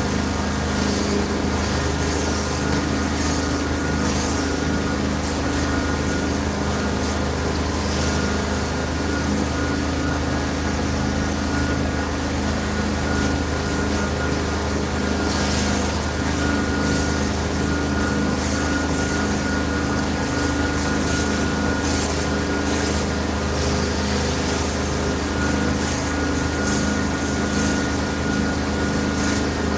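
Carpet-cleaning extraction machine running steadily: a constant engine-like drone with a faint high whine.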